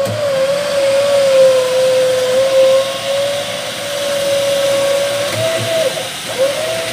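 Electric winch motor on an off-road 4x4 whining steadily under load as it hauls the vehicle on its steel cable. Near the end the whine cuts out briefly and comes back a little higher in pitch.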